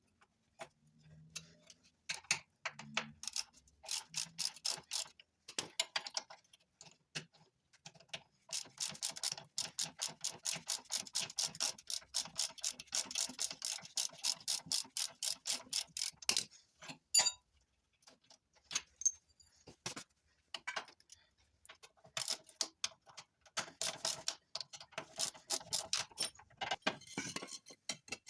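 Ratchet wrench clicking as bolts are turned out during disassembly, in several runs of quick clicks. The longest run lasts about eight seconds at roughly five clicks a second.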